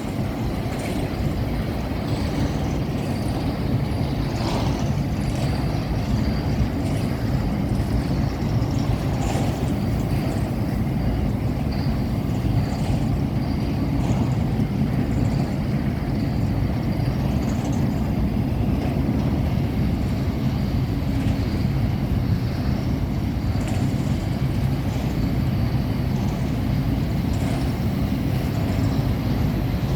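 Freight train climbing a grade: the steady low rumble of its diesel-electric locomotives working under load, with light scattered clicks of wheels on the rails.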